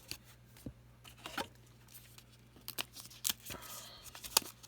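Trading card packs and cards being handled: scattered soft rustles, tearing and light clicks of paper and card wrappers, a little busier near the end.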